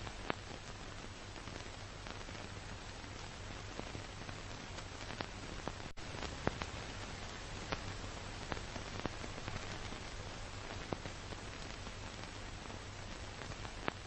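Analog tape static: a steady hiss with scattered crackling pops over a low hum, cutting out for an instant about six seconds in.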